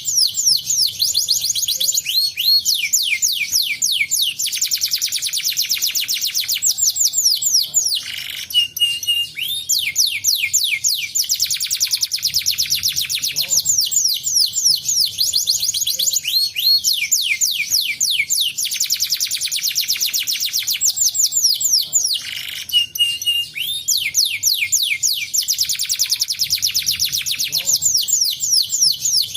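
Canary singing in long rolls of very fast trills made of quickly falling notes. The trills are broken twice by a short steady whistle.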